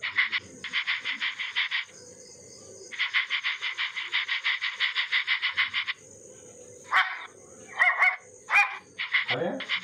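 Dog sound effects from an animated dog app: two runs of quick breathy pulses, about eight a second, then a few short high yips and barks in the last three seconds.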